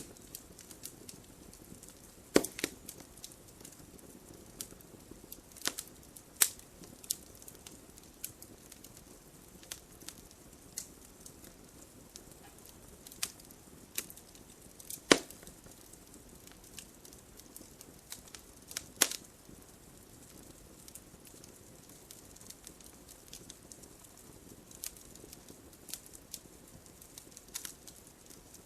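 Wood logs burning in a fireplace, crackling: a faint steady background with scattered sharp pops and snaps, the loudest about two, six, fifteen and nineteen seconds in.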